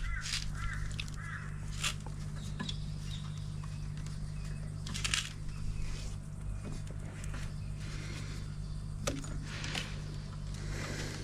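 A few short bird chirps near the start over a steady low hum, with scattered light clicks and knocks.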